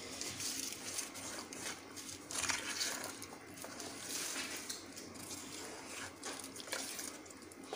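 Steel spoon stirring semolina dosa batter in a steel bowl as water is mixed in to thin it, faint and irregular, with soft liquid stirring and scraping against the bowl.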